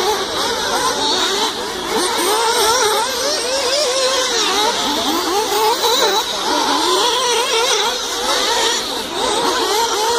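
Several 1/8-scale nitro RC buggy engines racing together, their high-pitched whines overlapping and constantly rising and falling as the cars throttle up on the straights and back off into the corners.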